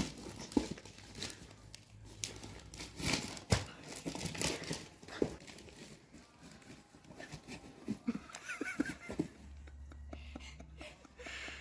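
Wrapping paper being torn and crumpled as a present is opened, in a run of short, irregular rips and crinkles.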